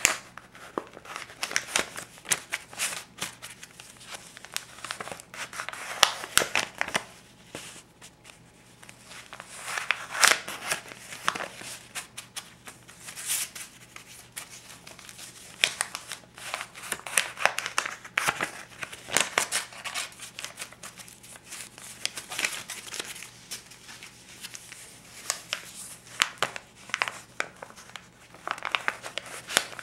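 Paper banknotes, a stack of US twenties and fifties, handled and counted one bill at a time: the crisp paper crinkles and snaps in irregular flurries, with short quieter pauses between them.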